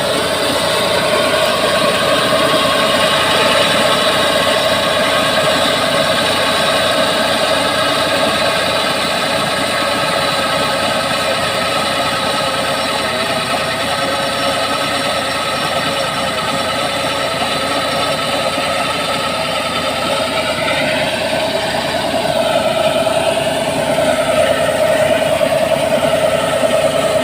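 Engine-driven drilling machine running steadily as it bores with little water. A strong steady tone runs throughout, wavering briefly in pitch about three quarters of the way through.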